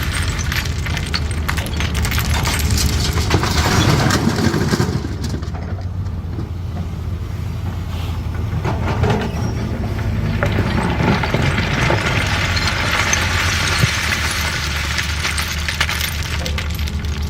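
Caterpillar 320D excavator's diesel engine running steadily, with clattering of stone and the bucket over it. The clatter eases off for a few seconds about five seconds in, then picks up again.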